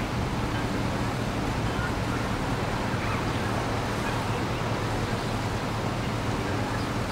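Steady low drone of a U.S. Navy E-2 Hawkeye's twin turboprop engines and propellers flying past, heard under an even rushing noise.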